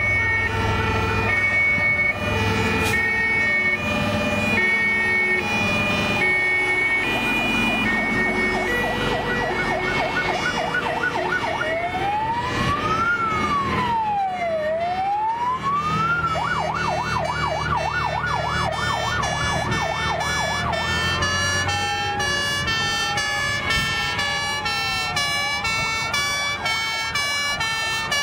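A convoy of fire engines passing with sirens on: several two-tone horns alternating high and low at once, overlapping an electronic siren that switches between a fast warble and a slow rising-and-falling wail. The trucks' engines run underneath.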